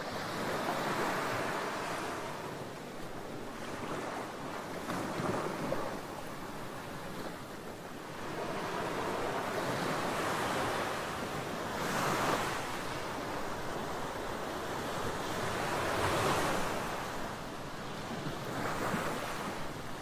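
Small ocean waves washing up on a sandy beach: a steady rush of surf that swells and eases every few seconds.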